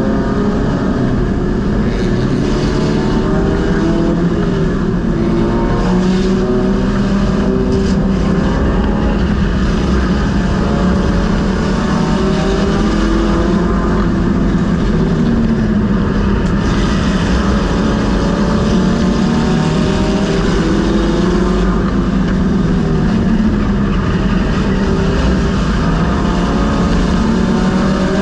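Race car engine heard from inside its cockpit, running loud, with the revs rising and falling gently and repeatedly as the car laps.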